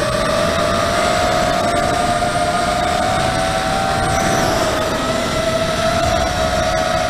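Brushless motors and propellers of a 250-size FPV racing quadcopter in flight, heard from its onboard camera: a steady high whine whose pitch drifts up and down slightly with the throttle, over a rushing of wind on the microphone.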